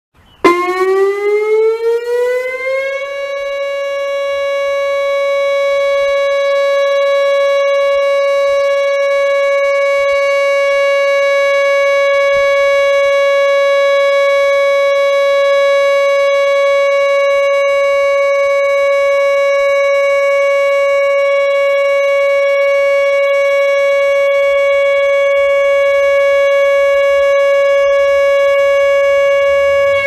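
Civil defense warning siren winding up, its pitch rising over the first few seconds, then holding one loud, steady tone.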